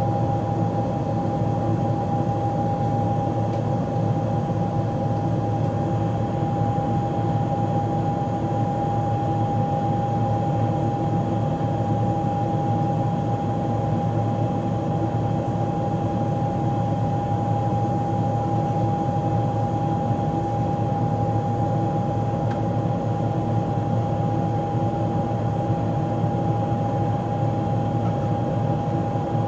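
Steady cabin noise of a Boeing 777-200LR climbing after takeoff: its GE90 turbofan engines and rushing airflow, heard from inside the passenger cabin, with one steady high hum running through the noise.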